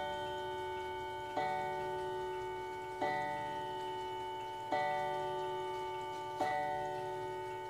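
Howard Miller Worthington mantel clock striking the hour: four identical chime strikes, evenly spaced about a second and a half apart, each ringing on into the next.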